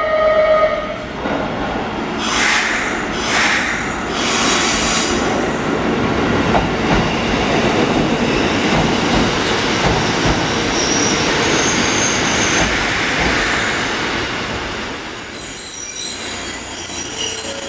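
A Kotoden green-and-white Nagao Line electric train pulls into the platform. Its wheels rumble, with a few clacks in the first five seconds. From about ten seconds in, high-pitched wheel and brake squeal sets in as it slows to a stop.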